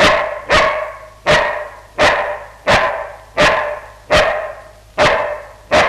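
A black Labrador barks nine times at an even pace, about one bark every two-thirds of a second. He is a trained performing dog counting out his answer to an arithmetic question, one bark per unit.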